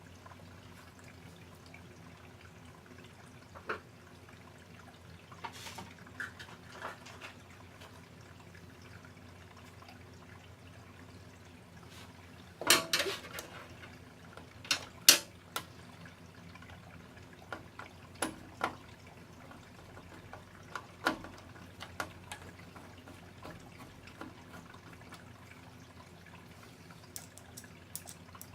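Scattered small metal clicks and taps of a hand screwdriver and screws as the new ignitor and flame rod are screwed down in a tankless gas water heater, the loudest a short rattle a little under halfway through and a sharp click just after it, over a faint steady low hum.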